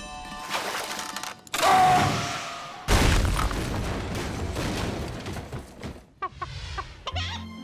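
Cartoon sound effects: about a second and a half in, a sudden loud rush with a falling whistle. At about three seconds comes a loud crash that rumbles away over a few seconds as a figure smashes through a block of ice. A few quick swishes follow near the end.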